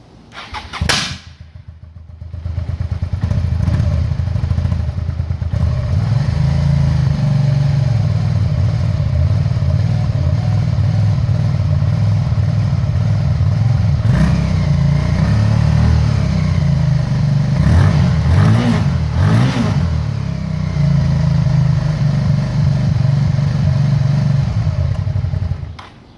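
2001 Suzuki SV650's V-twin engine cranked on the starter, catching about two seconds in and running for over twenty seconds, with its pitch rising and falling a few times in the second half before it shuts off near the end. It is a cold start, with the engine misfiring.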